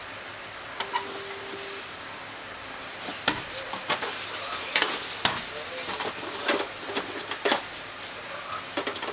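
Small hard objects clicking and knocking as someone rummages through a rack of thread-spool drawers, a scattered run of sharp clicks that starts about three seconds in.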